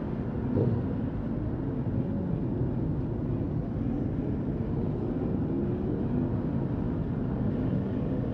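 Several motorcycle engines running at low speed among a group of bikes, with a short rev about half a second in.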